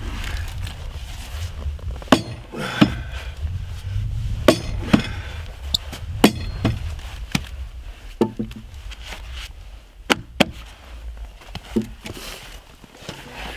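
About ten heavy thuds of a long-handled striking tool hitting a pine wall log, at uneven intervals, the log being knocked down into its notch. A low steady rumble runs underneath.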